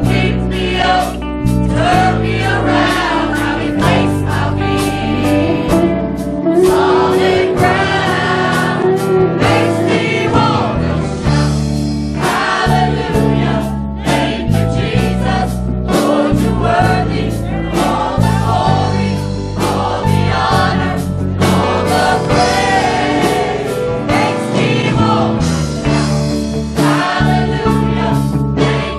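Gospel worship music: a church choir singing with a band, over a steady beat.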